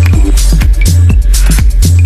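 Electronic dance music from a techno DJ set: a driving beat with a deep, heavy bassline, punchy kick drums and crisp hi-hats repeating at a steady tempo.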